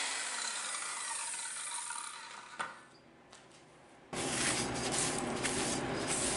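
Circular saw with a carbide-tipped blade spinning down after cutting through half-inch aluminum plate, its whine falling in pitch as it coasts and fades. About two and a half seconds in comes a single clunk, then a moment of near silence, then a steady low noise with faint scratching.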